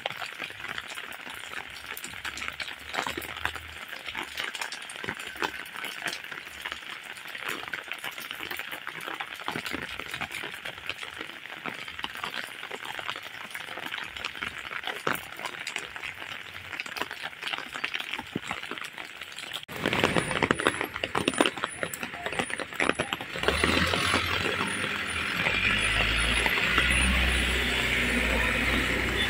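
Rain falling steadily, with a dense patter of drops close by. It grows louder about twenty seconds in, and near the end a motor vehicle's engine comes up along the wet road.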